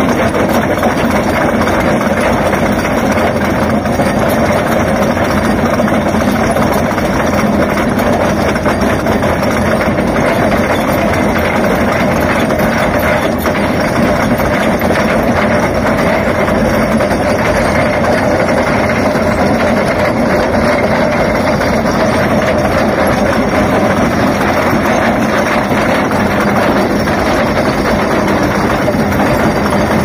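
Hyundai 480 excavator's trencher attachment grinding and chewing through rocky ground, over the steady running of the machine's heavy diesel engine. The grinding noise goes on, loud and even, without let-up.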